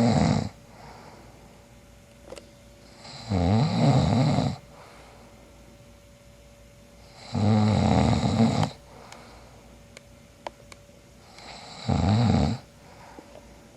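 A man snoring in his sleep: one loud snore about every four seconds, three full snores after the end of one at the start. The uploader thinks the snoring is borderline sleep apnea.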